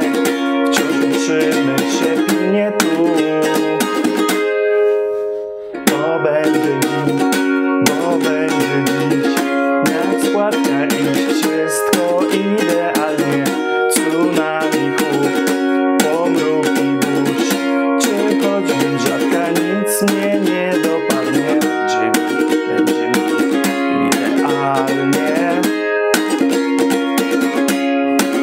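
Ukulele with a capo on the first fret, strummed in a quick, even rhythm through a chord progression. About four seconds in, one chord is left to ring and die away, and the strumming picks up again shortly after.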